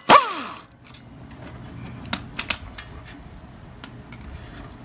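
A short, loud burst at the very start whose pitch falls away over about half a second, as of a power tool spinning down. Then scattered light metallic clicks and clinks of tools and hardware while the 15 mm tie rod nut is worked off.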